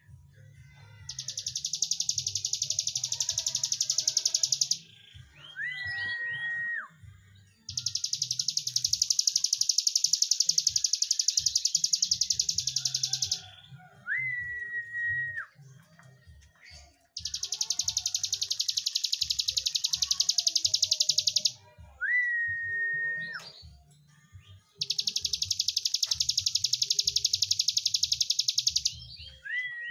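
Caged hill prinia (ciblek gunung) singing its long 'breen': four long, loud, rapid buzzing trills of four to six seconds each, with a short whistled note that rises and then holds between them.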